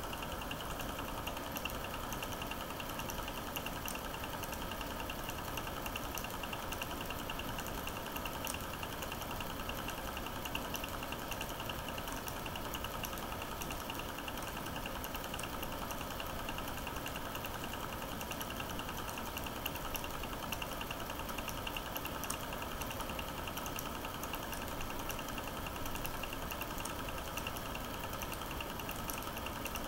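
A cine projector running, a fast, even mechanical clatter from its film-advance mechanism, steady throughout.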